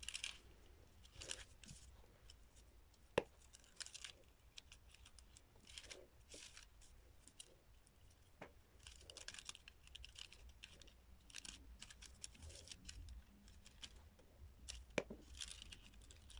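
Faint rustling and crinkling of thin, coloured, see-through paper as it is folded and pressed down by hand, in short scattered bursts, with two sharp clicks, about three seconds in and near the end.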